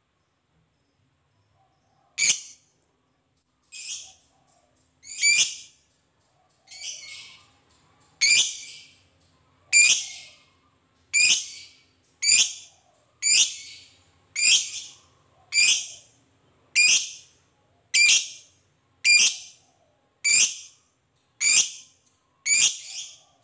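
Masked lovebird giving about seventeen short, shrill calls, roughly one a second, starting about two seconds in.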